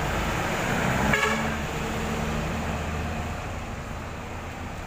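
Bus passing in street traffic, its engine running, with a short vehicle horn toot about a second in, the loudest sound.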